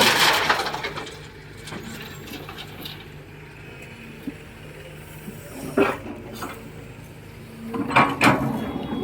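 Excavator loading a dump truck: a diesel engine running steadily, with three loud rushes of clatter, one at the start, one about six seconds in, and one near the end.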